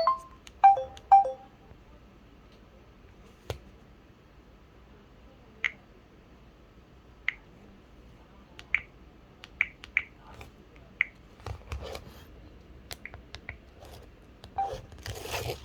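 LG Wine Smart Jazz flip phone's sound effects: a quick run of short electronic beep tones at the start, then a series of short, sharp key clicks and tones as its buttons are pressed one at a time every second or so. Rustling handling noise near the end.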